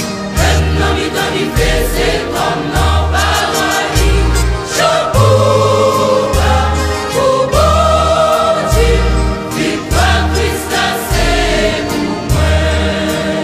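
Gospel music: a choir singing over a steady, pulsing bass line.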